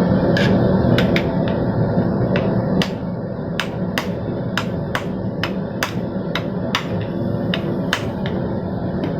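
Hand hammer striking hot steel on an anvil: a few scattered blows, then light, quick, even strikes at about two to three a second, over a steady drone.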